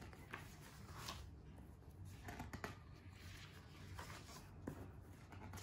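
Faint rustling and flapping of glossy magazine pages being turned by hand, several brief strokes.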